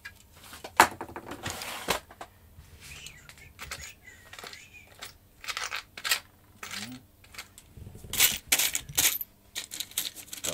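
Small steel screws and metal parts clinking and rattling in irregular short bursts as a hand rummages through a drawer of small parts and then a box of screws.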